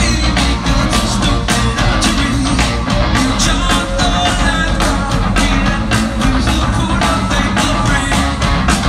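Live rock band playing loudly, with a steady drum beat, electric guitars and singing, heard from the audience in a large amphitheatre.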